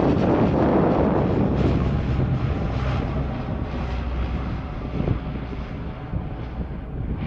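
Convair 340-family twin-engine propeller plane climbing out after takeoff, its engine and propeller noise with a low hum loud at first and fading as it moves away.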